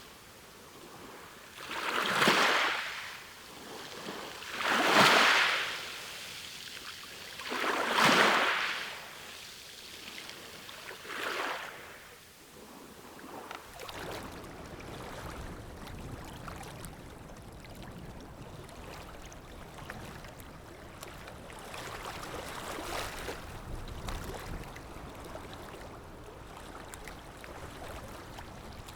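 Sea waves washing onto a shore: four surges that swell and fade about three seconds apart, then from about halfway a steadier, continuous rush of surf with a low rumble.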